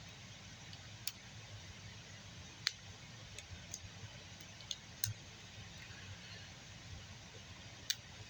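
Scattered small metallic clicks and ticks of a lock-pick hook working in a handcuff keyhole, about seven over the stretch, over a faint steady low hum.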